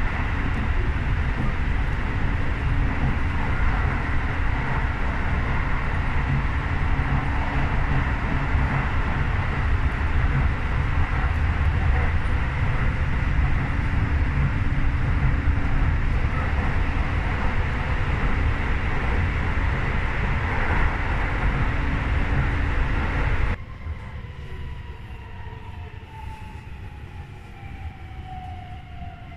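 Tokyo subway train running at speed, heard inside the car: a loud, steady rumble of wheels on rail. Near the end it drops suddenly to a quieter cabin sound in which the electric traction motors' whine slides down in pitch as the train slows.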